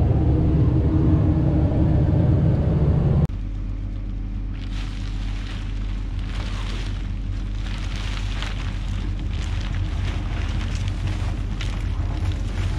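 Wheel loader's diesel engine running, loud and droning, heard from inside the cab. About three seconds in this cuts to the loader's engine at a lower level, with the irregular crackle and rustle of a plastic silage cover being pulled off a roll on the loader's bucket.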